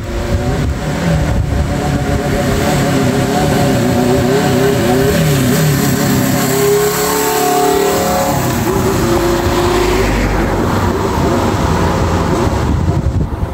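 Yamaha XJ550's air-cooled inline-four engine being ridden and revved up and down repeatedly, its pitch rising and falling, bosozoku-style throttle blipping on a custom motorcycle.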